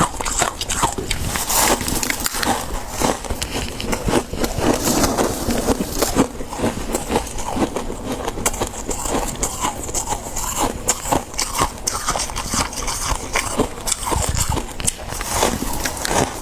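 Soft freezer frost being bitten and chewed: a dense, continuous run of crunches and crackles.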